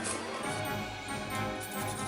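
Background music: instrumental, with sustained notes over a steady pulse.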